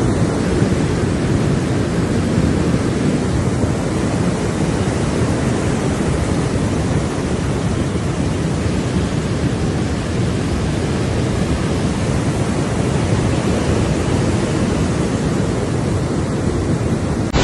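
A river in flood, a fast, silt-laden torrent, rushing with a steady, heavy roar of water.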